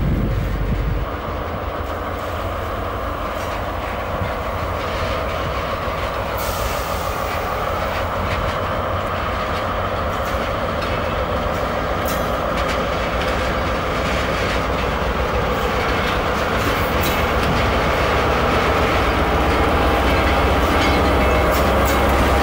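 Departing freight train hauled by diesel locomotives BB 75448 and BB 67471, its empty wagons rolling past in a steady rumble with wheels clacking over the rail joints. The rumble grows a little louder toward the end.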